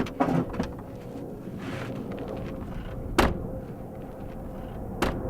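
Two car doors slamming shut, one about three seconds in and the next about two seconds later, over a steady low background rumble.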